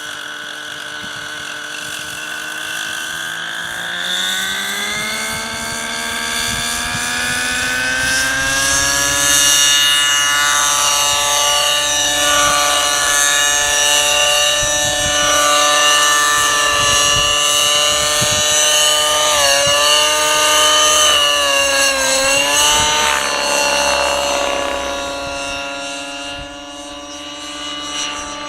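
Align 600N nitro RC helicopter's glow engine and rotor spooling up, the pitch rising steadily over several seconds to flying head speed. It then holds there with brief swings and dips in pitch about two-thirds of the way through, and settles lower near the end.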